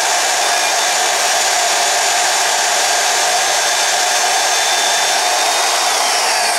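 Portable metal-cutting band saw, mounted upright as a small vertical band saw, running steadily as it cuts through 3/8-inch aluminum plate. The cut is slow because the blade is a coarse, worn steel-cutting blade running too slow for aluminum. Near the end a high whine begins to drop in pitch.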